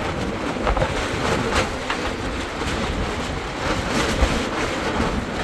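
Heavy wind rumbling and buffeting the microphone, with a few irregular knocks.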